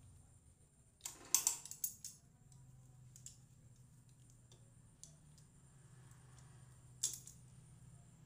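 A quick cluster of light, sharp clicks and taps about a second in and one more near the end, over a faint steady low hum.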